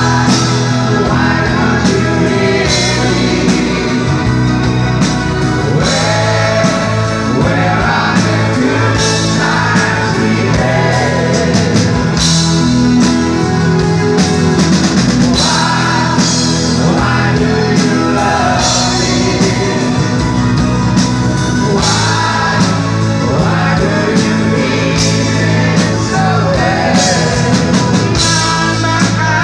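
Live rock band playing a song: a man singing, with acoustic guitar, drums and keyboards.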